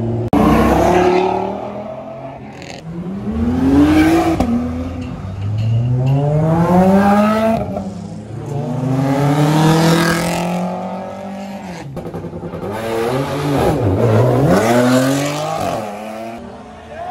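Sports cars accelerating hard past one after another, engines revving up in four or five rising pulls a few seconds apart.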